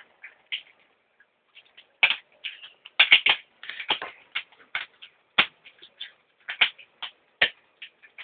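Irregular sharp clicks and taps from three-month-old husky puppies moving about, thickest about three to five seconds in.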